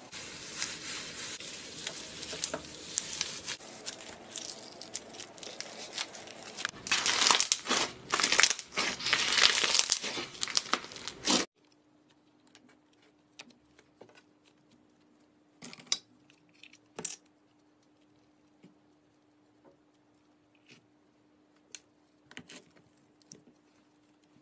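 Slime being played with: a dense crinkly crackling that grows louder, then cuts off abruptly about halfway through. After that come only a few faint clicks over a low steady hum.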